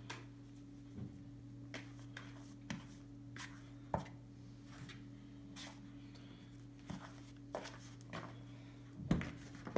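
Scattered light knocks and scrapes of hands and a plastic mixing bowl on a wooden table as soft dough is tipped out onto spread flour, over a steady low hum.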